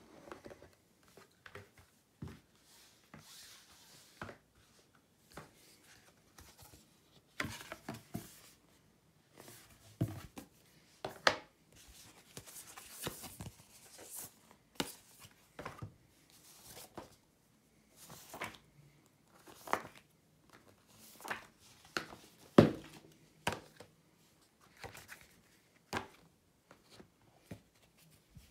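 Board game pieces, cards and box insert parts being handled and set in place: irregular clicks, knocks and rustling, with one louder knock about two-thirds of the way through.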